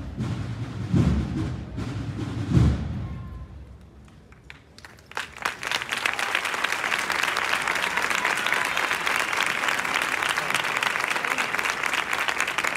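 Two heavy low thumps in the first three seconds, then after a short lull a crowd bursts into steady applause about five seconds in.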